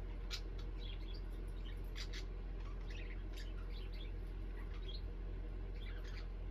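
A pair of pet parakeets chirping, with short high chirps scattered irregularly throughout, over a steady low hum.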